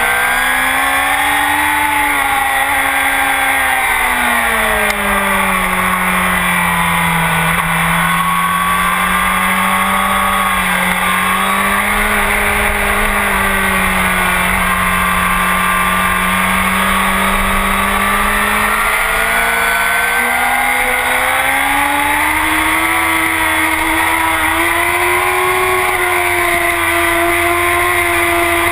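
Honda CBR1000RR's inline-four engine through a full Akrapovic exhaust, running on track: the note rises briefly, drops over the next few seconds, holds lower and steady for about twelve seconds, then climbs again and holds higher near the end.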